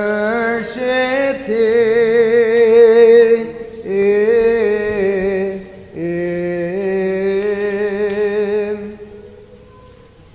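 A single male voice singing slow, melismatic Byzantine chant in three long phrases with wavering held notes, fading out about nine seconds in.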